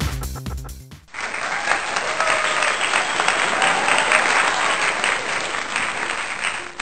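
Electronic dance music fades out in the first second, then applause starts suddenly about a second in and keeps going steadily.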